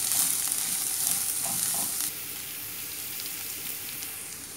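Chopped onion, ginger and garlic sizzling in hot coconut oil in a nonstick frying pan, stirred with a wooden spatula. The sizzle drops suddenly about two seconds in and goes on more quietly, with a few light ticks.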